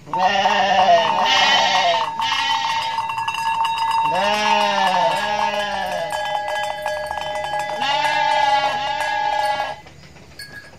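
Goats and sheep bleating in three bouts, each of about two wavering bleats, at the start, about four seconds in and about eight seconds in. A steady ringing tone runs under the bleats and stops sharply about ten seconds in.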